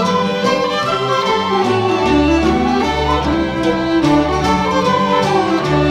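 Background instrumental music: a sustained melody over a low bass line that comes in about two seconds in.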